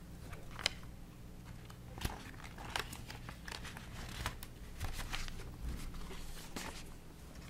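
Sheets of paper being handled and shuffled on a table: scattered crinkling rustles and small clicks and knocks, over a low steady hum.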